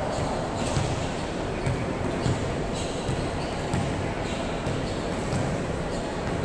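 A volleyball thumping on a wooden gym floor, a short knock about once a second. Behind it run the steady noise of a large hall and faint voices.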